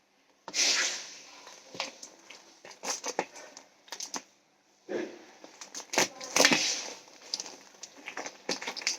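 Parcel packaging being handled and opened: irregular bursts of crinkling, crackling and tearing, with short pauses between them.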